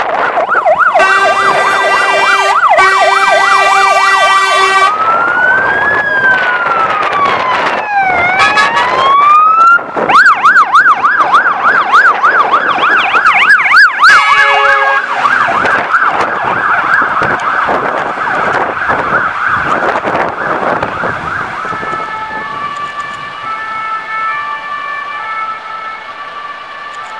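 Fire engines' electronic sirens on emergency: a fast yelp, two long horn blasts, then a slow wail that switches to a fast yelp as a truck passes close. The sirens fade as the trucks drive off, with a stepped multi-tone siren pattern near the end.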